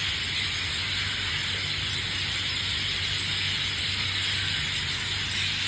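Many birds calling at once from one roosting tree, blended into a steady, dense high-pitched chatter, over a low steady hum.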